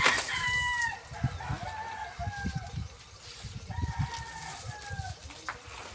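A rooster crowing twice: a long call with several tones that trails off falling in pitch, then another crow about four seconds in. Low irregular bumps run underneath.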